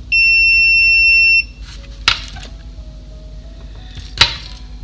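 Digital multimeter's continuity beeper sounding one steady high-pitched beep of just over a second, the sign of a near-zero-resistance path between the probes, as expected on the negative (ground) side of a capacitor. Two sharp clicks follow, about two seconds apart.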